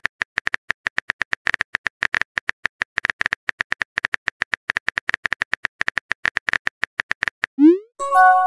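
Phone keyboard tap clicks from a texting-story app, rapid and even at about nine a second. Near the end a short rising swoosh and a brief chime of several steady tones sound as a message is sent into the chat.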